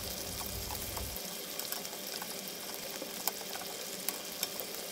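Spring rolls deep-frying in hot oil: a steady sizzle with scattered small crackles.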